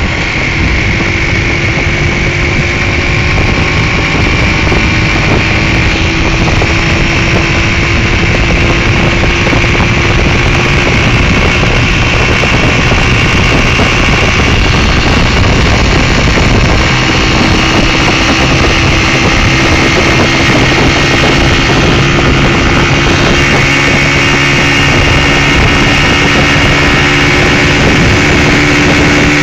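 Car engine and road noise heard from inside the cabin while driving at speed: a loud, steady drone with a faint whine whose pitch creeps slowly upward.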